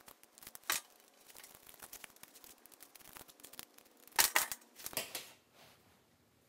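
Handling noise of a screwdriver and an electrical outlet being worked at a workbench: scattered light clicks, with a cluster of sharp clicks and knocks about four seconds in.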